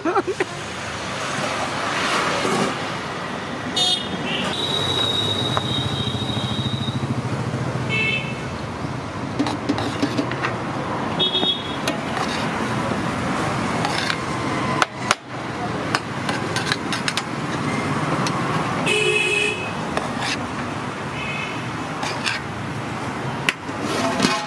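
Road traffic running steadily with vehicle horns tooting several times, one horn held for a couple of seconds about five seconds in.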